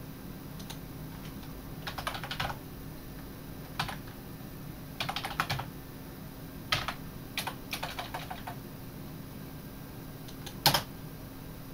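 Typing on a computer keyboard in short bursts of key clicks with pauses between, and one louder single key strike near the end, over a steady faint room hum.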